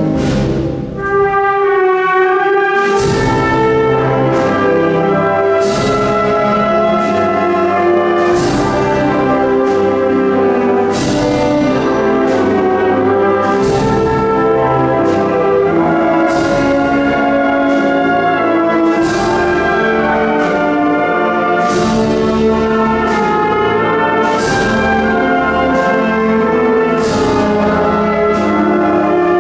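Symphonic concert band playing a slow Spanish Holy Week processional march: brass (trumpets, trombones, horns) holding sustained chords over even percussion strikes about every second and a half. The low instruments drop out briefly about a second in, then the full band returns.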